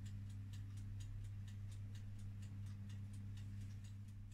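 Faint, rapid, regular ticking, about five ticks a second, over a steady low electrical hum.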